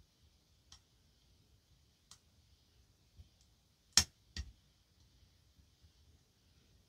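Pins of a Goal S lock clicking as they are picked and set under tension: a few faint clicks, then two sharper, louder clicks about four seconds in.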